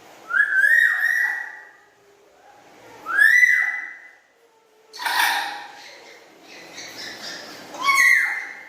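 Black-capped lory giving loud whistled calls: four separate calls with pauses between them, mostly rising whistles, one about five seconds in harsher and noisier.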